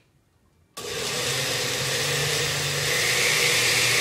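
Countertop blender with a glass jar switched on about a second in, its motor running loud and steady as it purées cooked carrots with chicken stock. Its note changes about three seconds in as the mixture breaks down.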